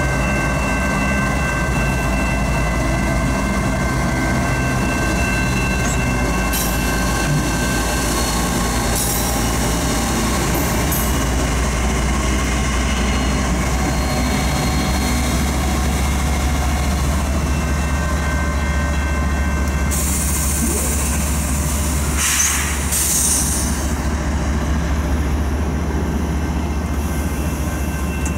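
CN freight train rolling through a level crossing: a steady loud rumble of the cars passing, with a thin steady wheel squeal over it. A few brief sharper screeching bursts come about two-thirds of the way through.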